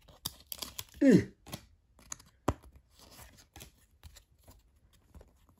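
Trading cards being slid one behind another in the hand: light clicks and scrapes of card stock. About a second in there is a brief, louder voice sound that falls in pitch.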